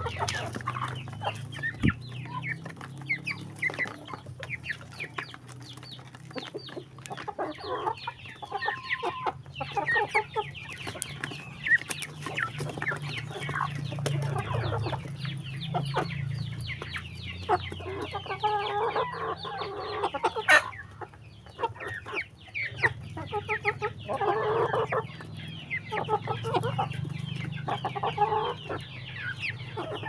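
A flock of hens and roosters clucking steadily at close range while they feed, with many sharp taps of beaks pecking the ground close by.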